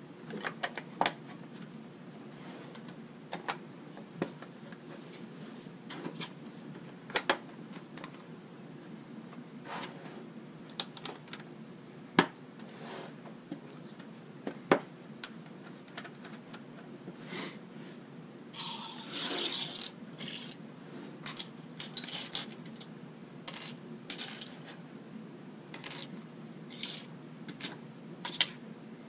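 LEGO plastic bricks and plates clicking and clattering as they are pressed onto a build and picked from a loose pile, in irregular single clicks. About two-thirds of the way through comes a longer rustle of pieces being sifted.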